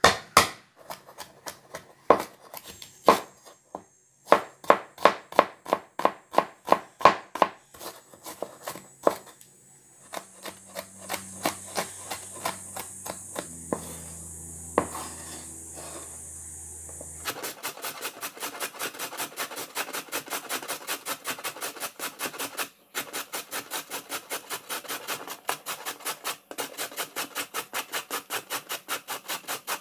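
A cleaver chopping green bell pepper on a wooden cutting board, a run of sharp, uneven knocks. About seventeen seconds in it changes to a carrot being grated on a metal box grater: fast, even scraping strokes, several a second.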